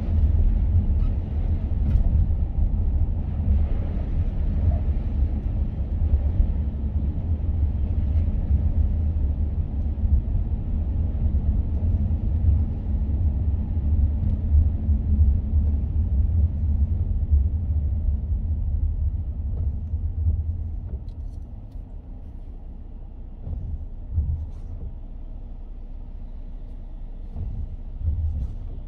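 Car driving on a rain-wet expressway: a steady low rumble of road and tyre noise with a fainter wet hiss above it. About twenty seconds in, the rumble drops, and a few low thumps follow.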